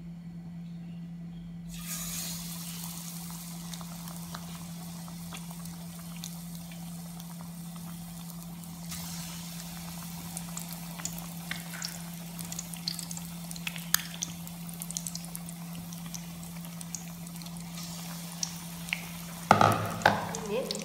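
Battered eggs dropped into hot sunflower oil: a hiss starts about two seconds in, and the oil sizzles and gets louder about nine seconds in, with sharp crackles and pops coming more and more often. A loud clatter comes near the end, over a steady low hum.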